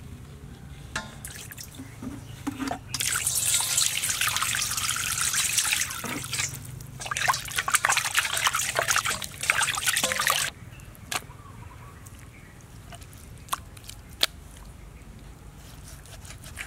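Water splashing and sloshing in a stainless steel bowl as raw pork is rubbed and washed by hand, in two spells with a short pause between them. A few sharp clicks follow once the splashing stops.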